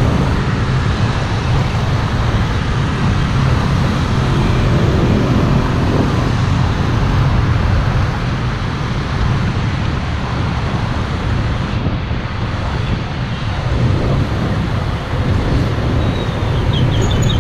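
Steady vehicle road noise: a constant low rumble with a hiss over it.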